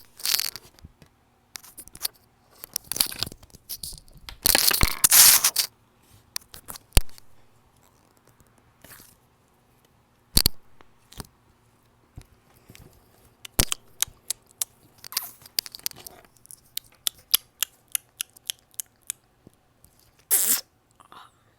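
Soft squishy toy being squeezed and worked in the hand, giving off irregular crunchy, crackling noises with a longer rustling burst about four seconds in.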